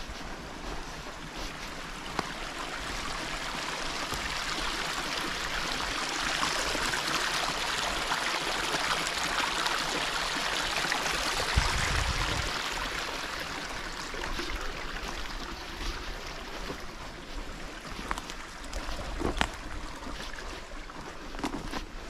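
Small woodland stream rushing over stones. It grows louder for several seconds as it is approached and passed close by, then fades. A few sharp footfalls on the path can be heard near the end.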